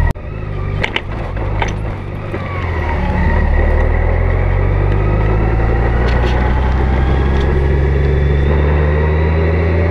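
Honda Gold Wing motorcycle engine running steadily at road speed, with wind rushing past the mounted microphone. Its note rises slowly through the second half as the bike speeds up, and a few short clicks sound about a second in.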